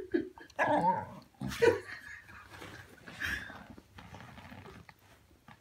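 A dog's mouth and breathing noises in a few short, irregular bursts as she works at a wine cork stuck on her tooth.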